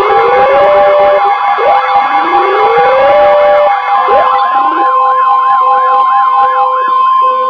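Several weather alert radios going off together for a severe thunderstorm warning. A tangle of rising-and-falling siren sweeps and repeated beeps plays over the steady 1050 Hz NOAA Weather Radio alert tone. About four seconds in the sweeps thin to a regular warble.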